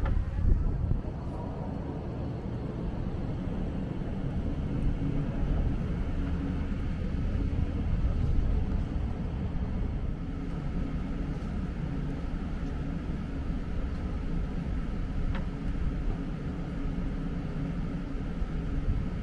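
Steady low hum of city traffic, vehicle engines running.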